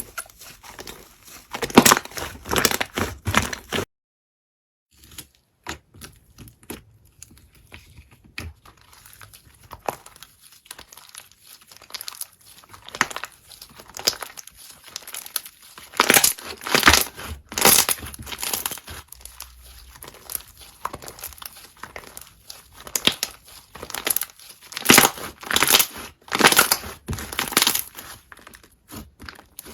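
Hands squeezing and poking slime close to the microphone: irregular clusters of sharp crackles, clicks and pops. There is a second of silence about four seconds in.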